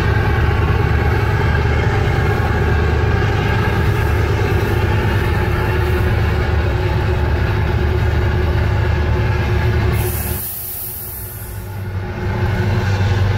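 Tugboat diesel engine running steadily at high load, a deep, even drone heard from inside the boat's cabin. About ten seconds in, the drone drops away for a couple of seconds under a brief hiss, then comes back.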